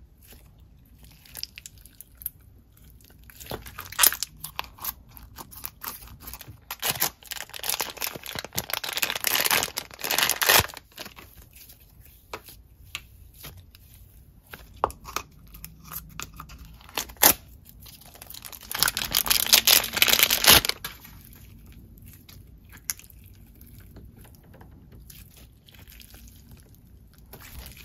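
Clear-base Bingsu slimes and a whipped cloud-cream slime being stretched and squished by hand, making sticky crackles and clicks as the slime pulls apart and the beads shift. The crackling comes in runs, densest about a third of the way in and again about two thirds in.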